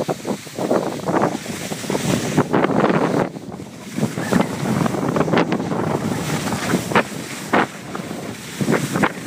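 Wind buffeting the microphone of a camera carried downhill on skis, in uneven gusts and surges, with the rasp of skis scraping over packed snow.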